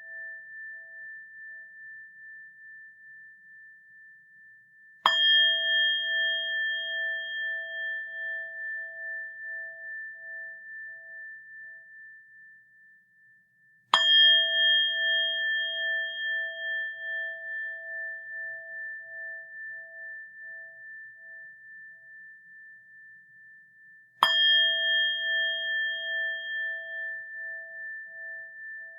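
A Buddhist rin bowl bell struck three times, about nine to ten seconds apart, each strike ringing out long and slowly fading with a steady wavering pulse in its tone. The last ring of an earlier strike is dying away at the start.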